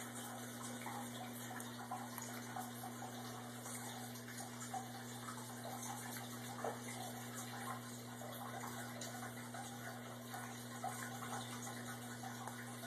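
Steady rushing noise with a low hum, over which faint, scattered crunches come from a Chihuahua chewing dry kibble.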